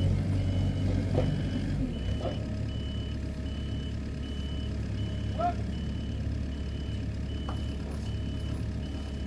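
A vehicle's reversing alarm beeping about one and a half times a second, a single steady tone, over the low rumble of an idling engine.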